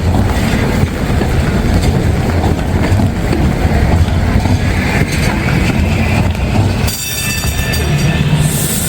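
Steady low rumbling of a passing vehicle's wheels on a wet street, changing abruptly about seven seconds in to a thinner sound with a high, steady hiss near the end.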